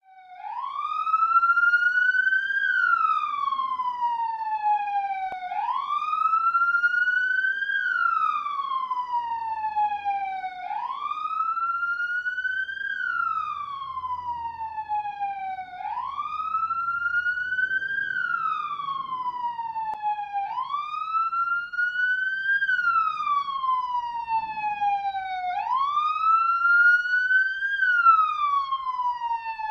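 Police siren sounding in a slow wail: a single tone that rises and then falls, repeating about every five seconds.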